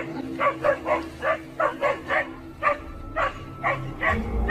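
A dog barking excitedly at a kangaroo standing at bay in the water, short barks repeated about two to three times a second.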